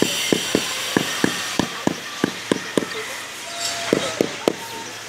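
A mason tapping a concrete roof tile with a hand tool to bed it level in mortar: quick, regular knocks, about four a second, some with a short ring.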